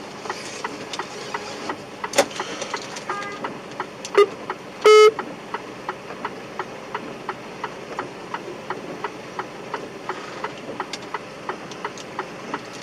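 A vehicle horn sounds one short, loud blast about five seconds in, over a steady ticking about three times a second and road noise.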